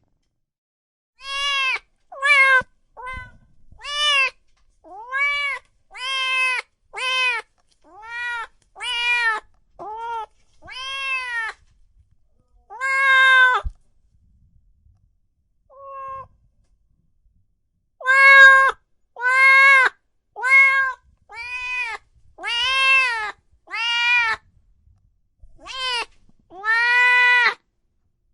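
Domestic cat meowing over and over: about twenty short meows, each rising then falling in pitch. There is a pause of a few seconds midway with one faint, short meow in it.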